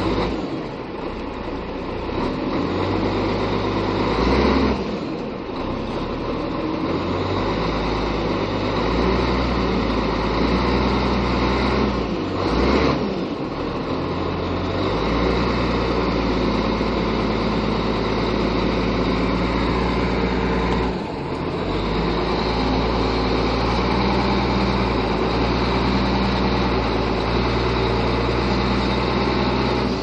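Heavy machinery engines running steadily, broken by three brief dips where the sound changes from one machine to the next.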